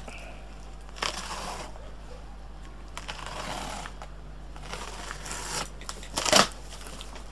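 Small knife slicing through packing tape along the seams of a cardboard box: a few short rasping cutting strokes, the loudest one near the end.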